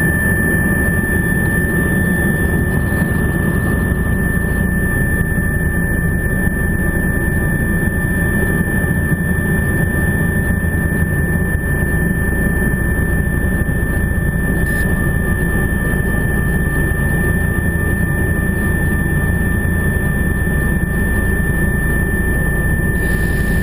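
Helicopter in flight, heard from on board: loud, steady engine and rotor noise with a constant high whine running over it.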